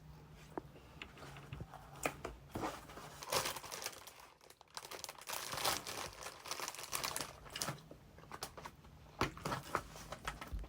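Plastic food packaging crinkling and being torn open by hand, in irregular bursts of crackling.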